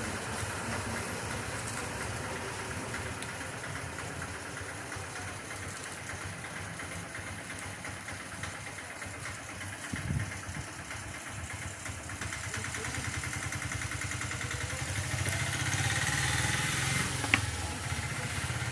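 An engine running steadily with an even pulsing, growing louder near the end, with one sharp click shortly before the end.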